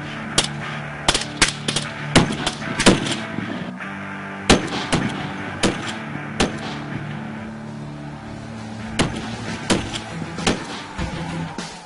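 Gunfire sound effects from guns and rifles: irregular single shots and quick runs of shots, densest in the first few seconds, with a lull in the middle before firing picks up again. A steady low drone of background music runs underneath.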